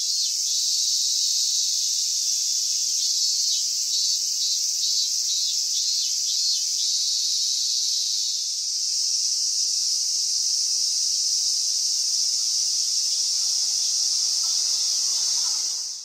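Cicadas singing in a tree: a steady, high-pitched buzzing drone, with a fainter pulsing call over it in the first few seconds. It cuts off suddenly at the end.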